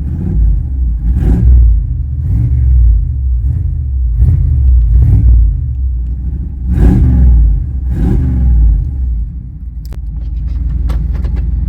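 Small-block 350 (5.7 L) V8 of a GMC 1500 pickup, run through a newly fitted exhaust cutout, revved in a series of about six short blips, then settling to a steady idle near the end. A few light clicks sound over the idle.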